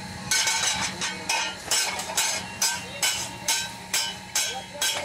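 Hammers striking a red-hot iron chisel blank on a small anvil while it is forged, a steady run of ringing metallic blows about two a second.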